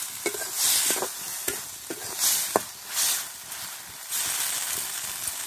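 Tomato-and-spice masala frying in oil in a metal kadai, sizzling in repeated surges as a metal spatula stirs and turns it, with several sharp clicks of the spatula against the pan.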